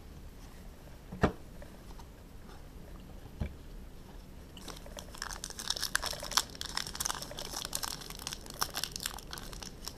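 A foil trading-card pack being crinkled and torn open by hand, a dense crackling that starts about halfway through and keeps going. Before it, a faint steady background hiss of heavy rain and two light knocks.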